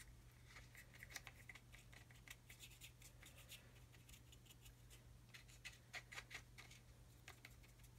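Faint dry scratching and ticking of a paintbrush's bristles working powdered weathering pigment onto a small model part, in scattered short strokes that bunch up about a second in, around the middle, and again near six seconds.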